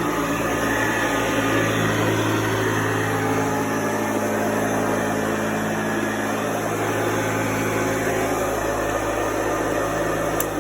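Vintage Hoover model 634 upright vacuum cleaner running, a steady motor hum with rushing air and its beater brush turning. A single sharp click near the end.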